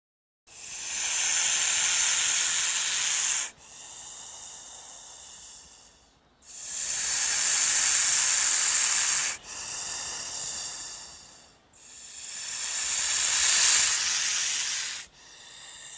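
Giant-snake hissing sound effect: three long, loud hisses, each breaking off into a quieter, shorter hiss.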